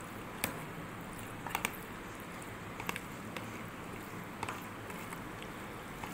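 Raw chicken strips in a wet sauce-and-spice marinade being squeezed and mixed by hand in a plastic box: soft squelching with scattered sharp clicks, over a steady low background.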